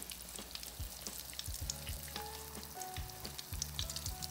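Chicken thighs frying slowly in a skillet of oil, a light, steady crackle of sizzling, with soft dull thuds of chicken being pressed and turned in a bowl of flour.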